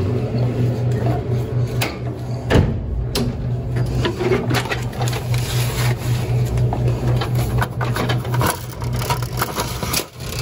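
Steady low mechanical hum with an even pulse from an opened snack vending machine, over clicks and knocks of its door and insides being handled. Near the end, paper bills are flicked through by hand.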